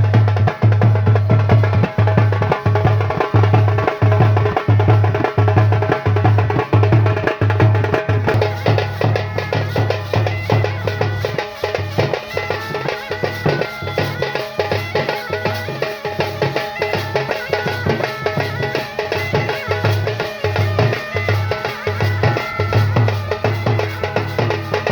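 Loud band music with a heavy, steady drum beat and dense instruments over it. The bass beat eases off somewhat about halfway through.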